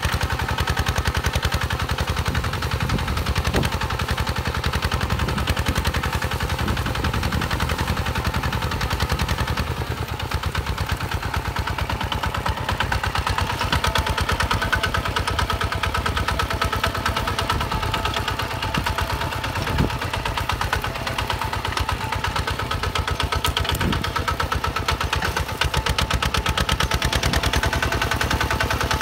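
Single-cylinder diesel engine of a walk-behind two-wheel tractor running steadily under load as it pulls a plow through dry soil, its straight exhaust giving a fast, even string of pops.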